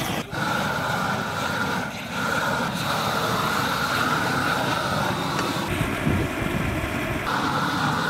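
Propane torches burning steadily with a continuous roar as they singe the hair off a whole carcass. The sound shifts abruptly a few times.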